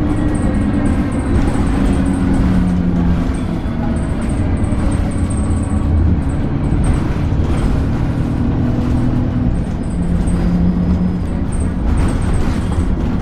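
Alexander Dennis Enviro 300 bus running, a steady low rumble with droning engine and drivetrain tones that shift in pitch every few seconds.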